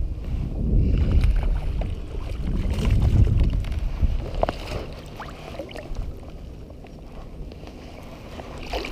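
Wind rumbling on the microphone, swelling at the start and again about three seconds in, with light water splashing and small knocks as a hooked largemouth bass thrashes at the surface and is drawn alongside a kayak.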